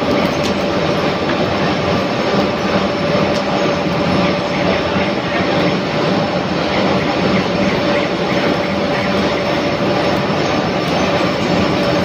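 Loud, steady foundry drone with a constant mid-pitched hum, from the induction furnace and plant running.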